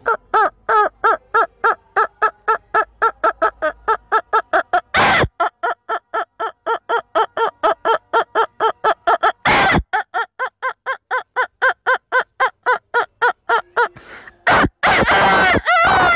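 A man imitating a rooster with his voice: a long run of quick clucks, about four or five a second, broken twice by sharp intakes of breath, then a long held call starting near the end.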